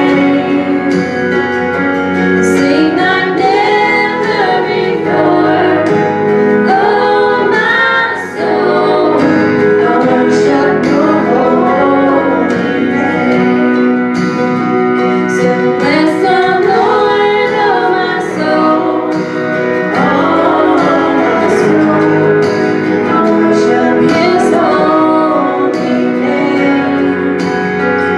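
Women's voices singing a gospel worship song together into microphones, over sustained instrumental accompaniment.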